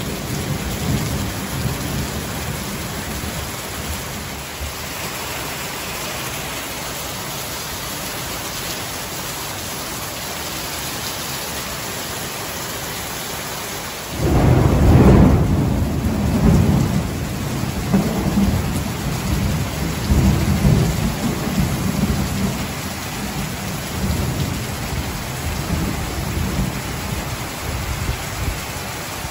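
Heavy rain falling steadily on a tiled patio and garden plants, a constant hiss. About halfway a sudden deep rumble breaks in, loudest just after it starts, and keeps rolling and swelling until the end.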